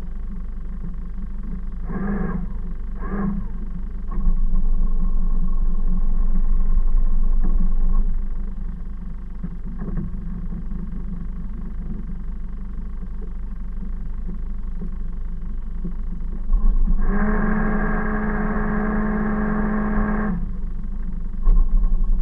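Motor cruiser's engine idling at its berth, a steady low rumble. Near the end comes a loud, steady, droning tone lasting about three seconds.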